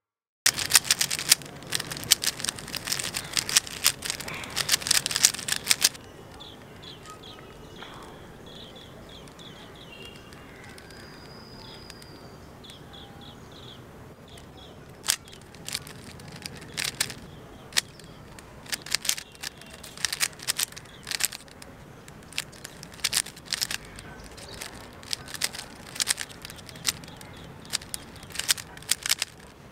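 3x3 Rubik's Cube being speed-solved by hand: rapid flurries of plastic clicks as the layers are flicked, with a lull of several seconds partway through. Birds chirp in the background.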